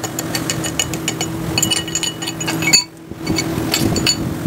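Hammer tapping repeatedly on a metal bearing housing: sharp, ringing metallic clinks, several a second in quick runs, over a steady machine hum that drops out briefly near the middle.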